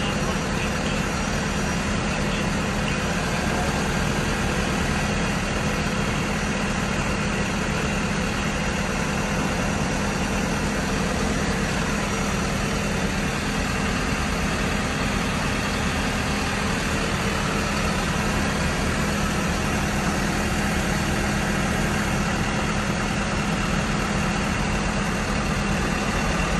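Diesel engine of a MAN TGL 12.180 tow truck idling steadily with a low hum, kept running while its loader crane lifts a motorbike onto the flatbed.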